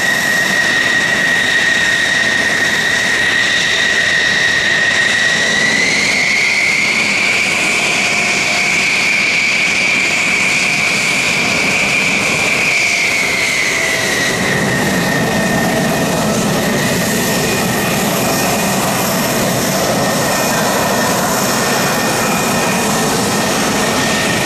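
F-16 fighter's jet engine running as the jet taxis past, a steady high whine that rises in pitch about six seconds in and drops back around fourteen seconds. A deeper rumble of the exhaust builds in the last third.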